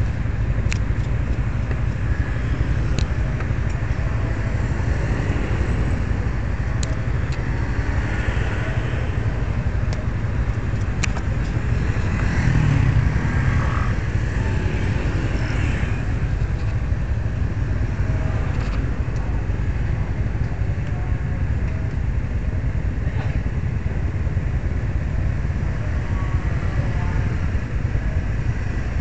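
Motorcycles running in city traffic: a steady low rumble of engines and road noise, heard from a camera mounted on a motorcycle, with a few faint clicks.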